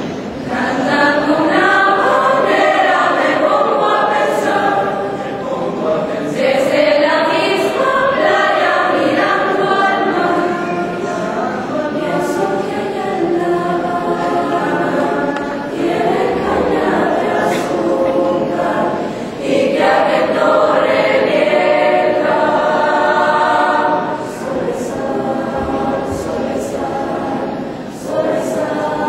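School choir singing, in phrases separated by short dips in loudness.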